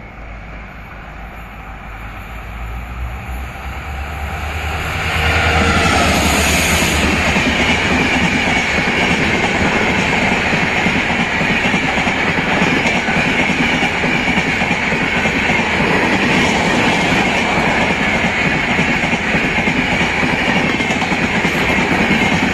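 Indian Railways express train with LHB coaches passing at speed: a low rumble as the locomotive approaches, then from about five seconds in a sudden rise to the loud, steady rush of the coaches' wheels on the rails.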